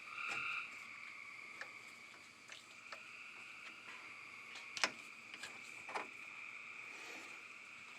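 Thermostat housing bolts being tightened by hand on a straight-six: a few light metal clicks and taps, the two sharpest about five and six seconds in, over a steady faint high-pitched drone.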